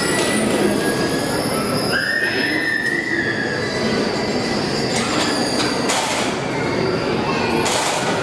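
Steady mechanical whine and hum from the humanoid heavy-machinery robot's drive as it moves its arms, with a higher whine rising about two seconds in and holding for about a second.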